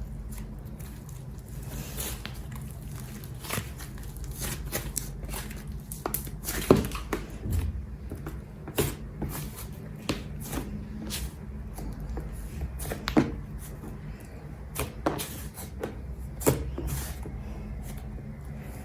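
Slime being squeezed and worked by hand, giving irregular sharp clicks and pops over a steady low hum.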